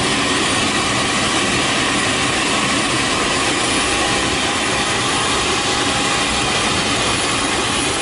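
Steady, loud roar of a homebuilt turbojet engine prototype running, a rushing noise with faint steady whining tones in it.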